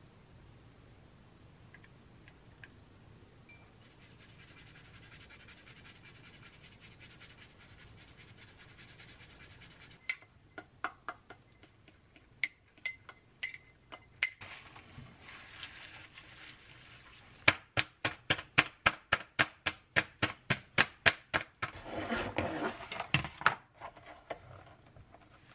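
Chopsticks clinking against a glass mixing bowl of beaten egg: a few scattered clinks, then a quick, even run of about five clinks a second as the egg mixture is stirred, then a short rustle.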